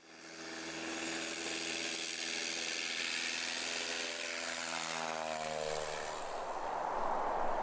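Single-engine propeller bush plane flying low past, its engine drone fading in and then dropping in pitch as it goes by about five seconds in. It gives way to a steady rushing noise near the end.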